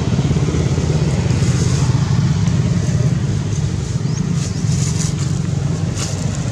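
An engine running steadily: a low, even drone that holds one pitch, with no revving.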